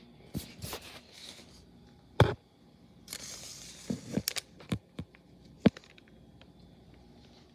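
Handling noise from a hard plastic toy vehicle: scattered knocks and clicks, the loudest about two seconds in and a quick cluster around four seconds, with a short rustle about three seconds in.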